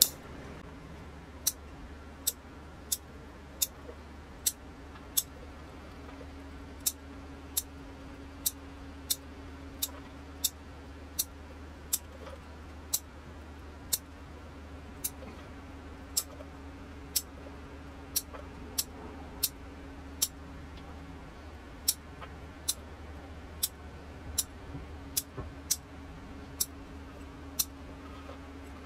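Small bonsai scissors snipping off the new shoot tips of a Sekka hinoki cypress during bud-cutting pruning. Crisp snips come about one every three quarters of a second, with a couple of short pauses.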